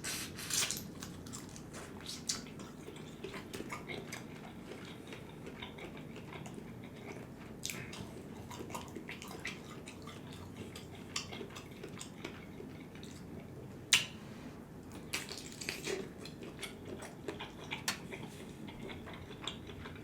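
Close-miked eating sounds from a seafood boil: chewing and mouth sounds with scattered small clicks and light clatter, one sharp click about 14 seconds in.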